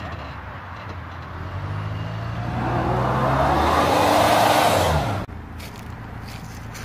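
Land Rover Discovery Sport's 2.2 diesel engine working under load as it crawls up a rocky slope, rising in pitch and growing louder with a broad rushing noise, then dropping in pitch just before it cuts off abruptly about five seconds in. After the cut a quieter engine runs low and steady: the 2011 Range Rover Evoque's 2.0 Si4 petrol.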